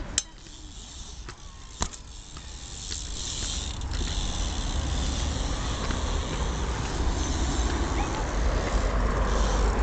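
BMX bike ridden on skatepark concrete: two sharp knocks in the first two seconds, then a steady low rumble that builds from about three seconds in.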